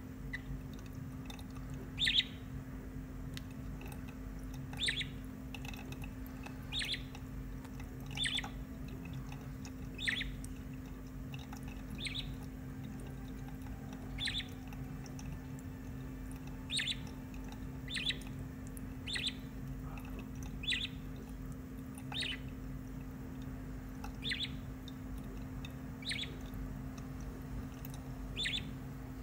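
Young budgerigar giving short chirps, about one every one to two seconds, over the steady sound of a thin stream of tap water and a low hum.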